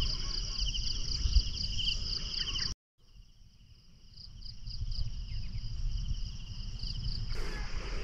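Insects chirping in a steady chorus of rapid, evenly pulsed high trills, over a low rumble. The sound cuts out completely for a moment about three seconds in, then the chorus returns.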